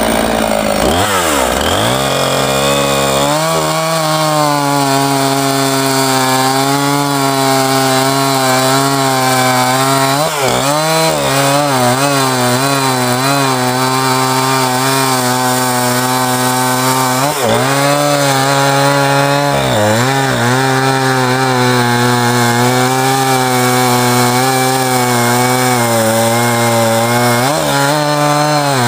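Gasoline chainsaw running at full throttle as it cuts through a western red cedar slab. Its pitch drops and climbs back near the start, then holds high with several brief dips.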